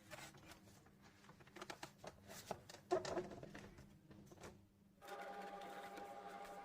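Irregular clicks and clatter of hard plastic parts being handled, the loudest about three seconds in. About five seconds in, a steady whirring hum starts and holds.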